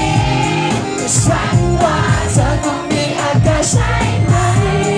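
Upbeat Thai pop song over stage speakers: a man sings into a handheld microphone over a backing track with a steady beat.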